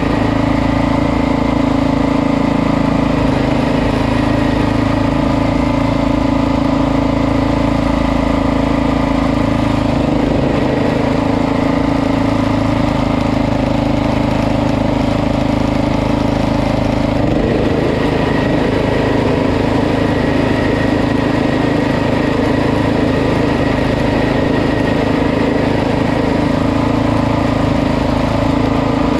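Poulan PXT12538 lawn tractor's 12.5-horsepower engine running steadily as the tractor drives along, its tone shifting slightly a couple of times.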